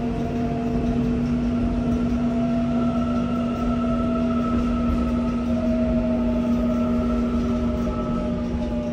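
Running sound inside a Seoul Line 4 subway car with a Mitsubishi GTO-VVVF inverter. A steady low hum sits under several inverter and traction-motor whines that slowly fall in pitch, as the train slows down.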